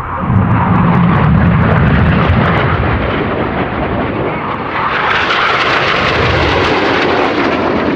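BAE Systems Hawk T1 jets, each with a Rolls-Royce Turbomeca Adour turbofan, flying past. A loud low rumble jumps up within the first half-second, then a higher rushing jet whine swells from about halfway through.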